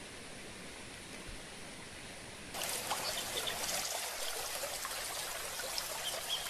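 Faint steady hiss, then about two and a half seconds in, water starts trickling and gurgling abruptly and keeps on, the sound of irrigation water running through flooded rice paddies.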